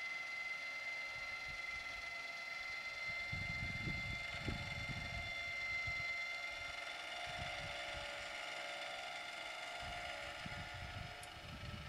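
Electric motor of a motorized satellite dish mount running steadily as it swings the dish along the satellite arc: a high whine made of several steady tones, which shift lower about halfway through. Wind gusts buffet the microphone now and then.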